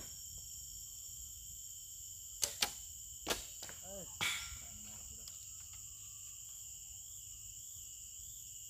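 Two traditional horsebows shot within a moment of each other about two and a half seconds in: sharp snaps of the bowstrings on release, followed by a couple of further short knocks. High, steady insect chirring runs underneath.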